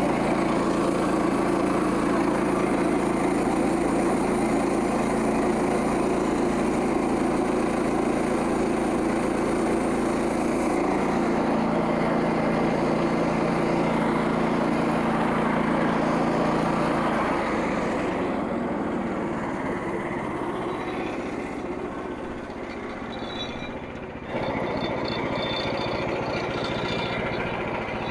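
Gas engine of a Frontier OS27 portable bandsaw mill running steadily, driving the blade. About two-thirds of the way through, its note drops and the sound eases off, then steps back up abruptly near the end.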